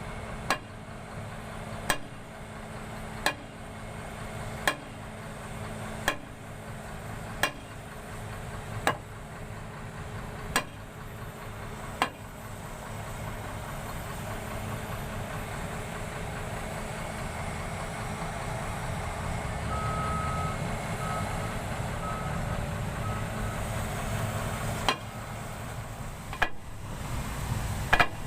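Heavy excavator's diesel engine running steadily, swelling somewhat louder about halfway through. Sharp knocks come about every second and a half in the first twelve seconds and a few more near the end, and from about two-thirds in a warning alarm beeps repeatedly.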